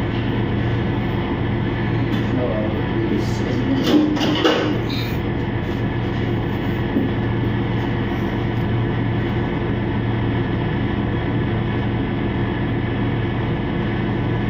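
Steady machine hum and drone of commercial kitchen equipment, with a few light clinks of utensils or crockery about four seconds in.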